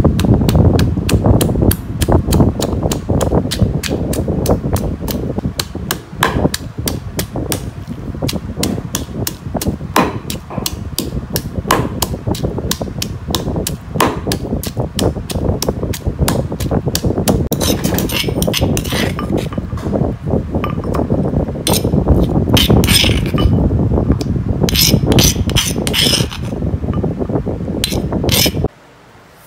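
Stone pestle pounding shallots, garlic and ginger in a granite mortar: rapid, steady strokes, which turn more irregular and sharper in the second half before stopping abruptly near the end.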